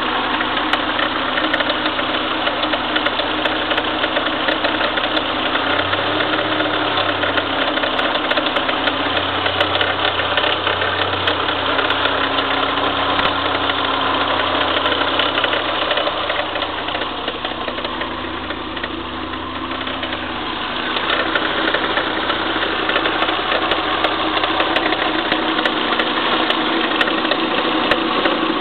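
An engine running steadily with a fast mechanical clatter, a noise its owner treats as abnormal. It goes briefly quieter a little past the middle.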